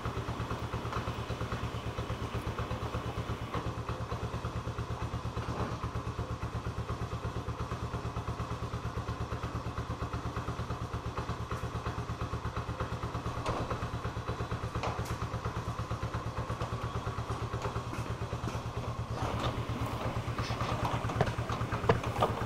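Honda three-wheeler's single-cylinder engine idling steadily, with a few clattering knocks near the end.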